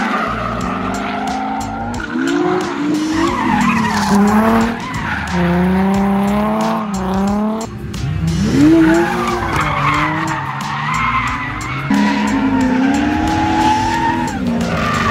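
Drift car engine revving hard, its pitch rising and falling again and again, with tires squealing and skidding as the car slides.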